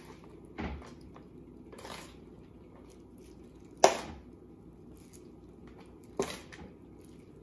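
Gloved hands tossing shredded green papaya and carrot in a disposable aluminium foil tray: four short, sharp crackles of food and foil, the loudest about four seconds in.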